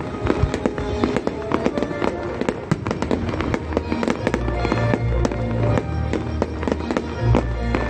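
A music-synchronised fireworks display: many quick bangs and crackles from bursting shells over a loud music soundtrack. A heavy low boom joins from about halfway through.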